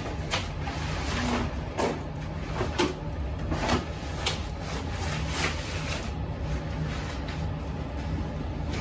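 Plastic sauna suit crinkling and rustling as it is pulled off the body, in a string of brief crinkles over the first several seconds, over a steady low room hum.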